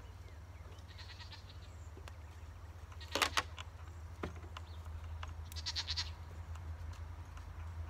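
Bleating from nearby livestock twice, the clearer call near the end, with a few sharp knocks of the timber wall frame being handled, the loudest about three seconds in.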